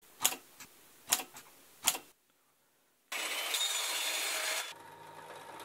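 Three sharp snaps, about one every 0.8 s, as a DIY battery-powered spot welder fires through nickel strip onto lithium-ion cells with its copper electrodes. About three seconds in, a metal chop saw cuts a copper rod: a loud grinding hiss for about a second and a half, then a quieter steady hum.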